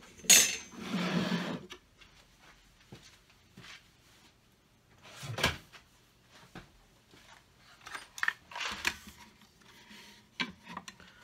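Workbench handling noises: a scraping rustle about a second and a half long near the start, then scattered knocks and clicking clatter as a drill-bit case is fetched and opened, the bits rattling inside it near the end.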